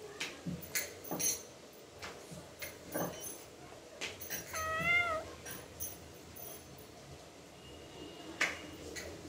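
A ginger kitten meowing once about halfway through, a single wavering call of under a second. Scattered light clicks come before and after it.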